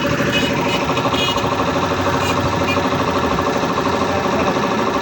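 Puma 5 hp piston air compressor running steadily under load, pumping up its tank, with a fast, even pulsing beat.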